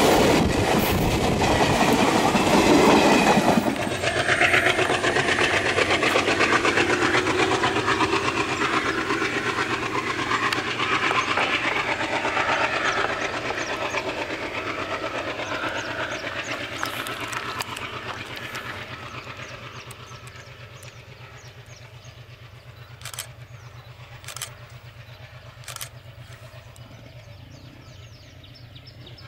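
Southern Railway passenger train's coaches rolling past at close range, wheels clacking over the rail joints. The last coach clears about four seconds in and the clatter then fades slowly as the train draws away. Three short sharp clicks near the end.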